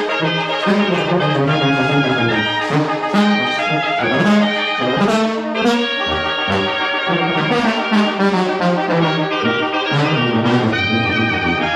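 Brass band music: trumpets and trombones playing a melody over a steady beat.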